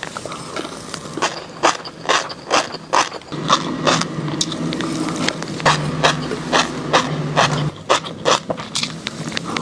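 Close-miked chewing of fish roe, the eggs crunching and popping in short crackles about two or three times a second. A low steady hum runs under it through the middle.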